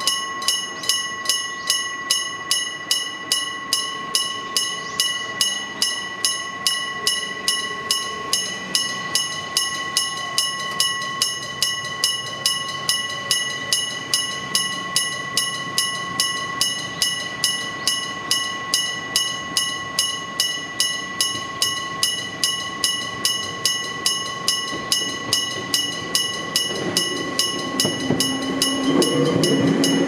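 Electric gong-type level-crossing warning bell ringing steadily at about two strikes a second, the signal that a train is approaching. Near the end a Gakunan Railway 7000-series electric train runs up into the crossing, its rumble growing louder under the bell.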